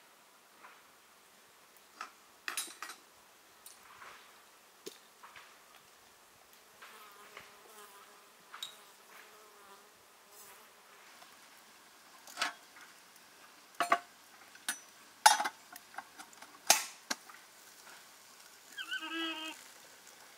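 Scattered sharp clinks and knocks of metal and glass as a samovar and glass teapot are handled, the loudest about two-thirds of the way through. A fly buzzes for a few seconds in the middle. Near the end, hot water runs from the samovar's tap into the glass teapot.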